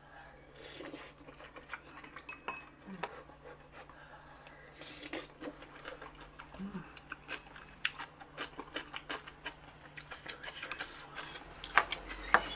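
Cutlery clinking and scraping against bowls and a hot-pot dish as food is served and eaten: many small scattered clicks, a couple of brief swishes, getting busier and louder near the end.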